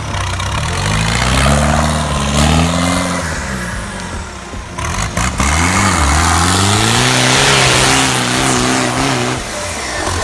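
Off-road 4x4 vehicle engine revving hard, its pitch rising and falling several times as the throttle is worked.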